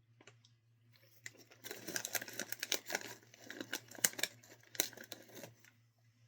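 Plastic snack bag of cheddar popcorn crinkling and crackling as it is handled and rummaged in. It starts about a second in and stops near the end, with a few sharper crackles.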